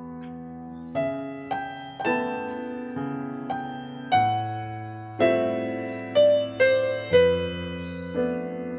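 Slow background piano music: single notes and chords struck about once a second, each left to ring and fade.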